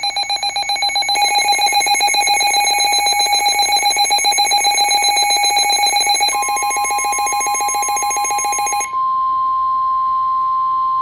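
Emergency alert tones: a loud, rapidly pulsing electronic alarm tone with shrill overtones. About six seconds in, a steady single-pitch tone joins it, the warning alarm tone of NOAA Weather Radio. That tone carries on alone after the pulsing alarm stops about nine seconds in.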